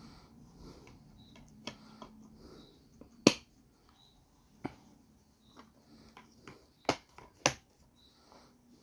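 Scattered sharp plastic clicks and snaps of a DVD case being handled, the loudest a bit over three seconds in and two more strong ones close together near the end.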